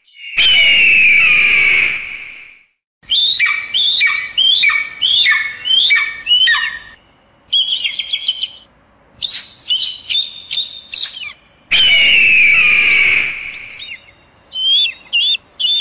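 Eagle calls: a long descending scream near the start, then a run of about six sharp, falling calls roughly half a second apart, then quick high chittering notes. A second long scream comes about twelve seconds in, and more high chittering follows near the end.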